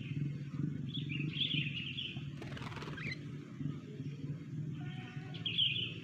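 Sooty-headed bulbul (kutilang) calling twice: one phrase about a second in, another near the end. Between them is a short rustling noise, and a low steady hum runs underneath.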